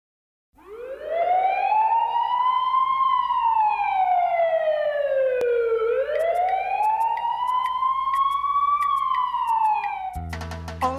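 Police siren wailing: a slow rise and fall in pitch, going through two full cycles. Music comes in just before the end.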